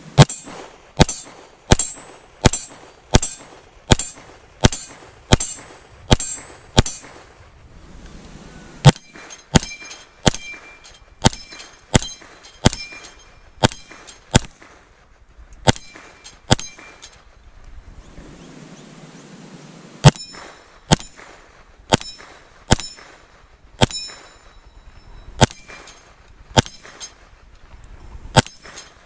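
Ruger PC Charger 9mm pistol fired in steady strings of single shots, about one every 0.7 seconds, with short pauses between strings. Many shots are followed by a brief metallic ring, which fits hanging steel targets being hit.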